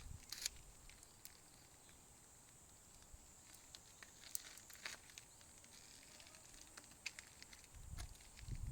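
Near silence: faint outdoor ambience with a steady faint high hiss and scattered soft ticks, and low rustling or handling noise building near the end.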